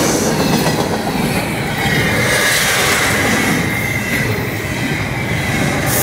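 Norfolk Southern double-stack intermodal freight cars passing at speed: a steady rumble and rattle of wheels on rail, with a thin high wheel squeal for a couple of seconds in the middle.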